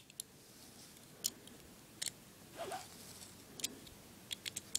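Scattered small clicks and taps of a metal scope-rail mount and flashlight being fitted and tightened by hand, with a quick run of clicks near the end.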